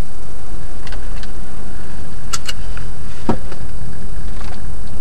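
Car driving, heard from inside the cabin: a steady low engine and road rumble with a few sharp clicks and rattles, the loudest a knock about three seconds in.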